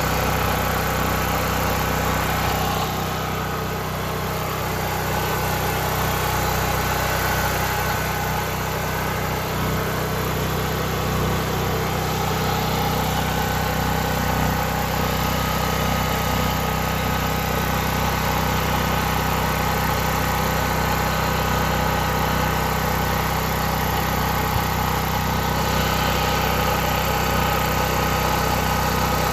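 Westinghouse WGen5300DFcv portable generator's engine running steadily at a constant speed, powering its outlets at 119 volts.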